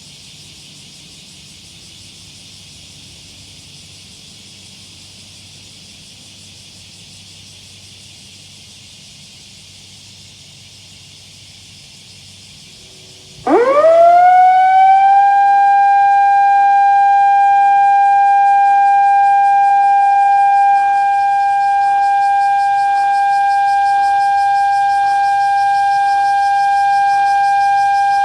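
Municipal disaster-prevention outdoor siren sounding the 8:15 Hiroshima memorial signal. About halfway through it starts, rising quickly from a low pitch to a high tone, and holds that tone steadily.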